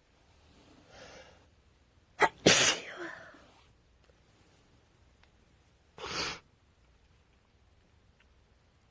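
A woman sneezing with a cold: a faint drawn-in breath, a sharp catch, then one loud sneeze with a voiced tail. A shorter, quieter breathy burst follows about three seconds later.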